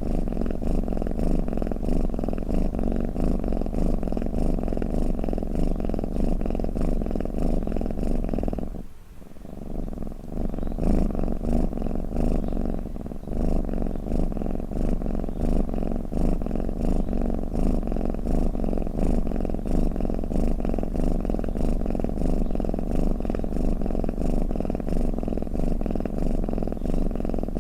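Domestic cat purring in a steady, low, rapid rumble that breaks off briefly about nine seconds in.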